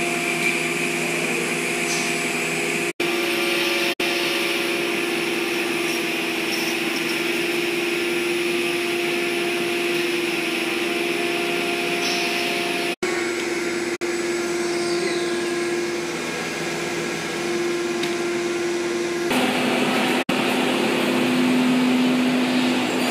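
ATC CNC router cutting a board: the spindle whine and the rush of the dust-extraction suction run steadily together. The sound drops out for an instant a few times, and near the end the steady hum shifts to a lower pitch.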